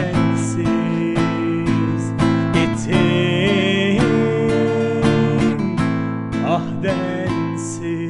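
Instrumental outro of a song: acoustic guitar strummed in steady strokes over held backing chords, with a wavering melody line held above. It begins to fade out near the end.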